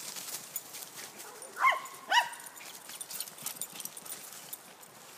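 A dog gives two short barks about half a second apart, with dry leaves crackling and rustling underfoot.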